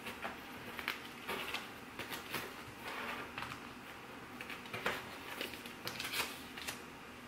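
Paper sticker sheets rustling as they are thumbed through and pulled out of cardboard file boxes: a string of short, irregular, crisp rustles and flicks.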